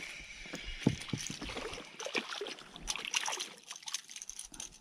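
A hooked perch thrashing and splashing at the water's surface as it is reeled in to the boat on light spinning tackle: irregular small splashes and water noise.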